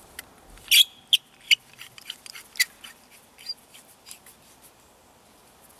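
Sharp clicks and light knocks of a survival knife's removable hollow handle and its parts being fitted back together by hand, several close together about a second in, then scattered ones, thinning out after about three seconds.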